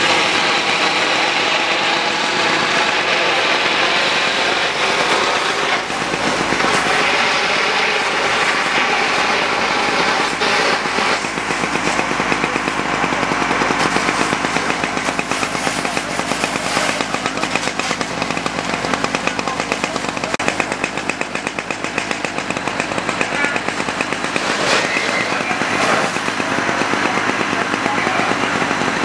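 An engine running steadily at a constant speed, loud and close, with a fast even pulsing and no revving.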